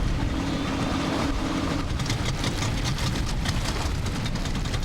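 Boat engine running with a steady low rumble and wind buffeting the microphone, with a burst of quick rattling clicks from about two seconds in.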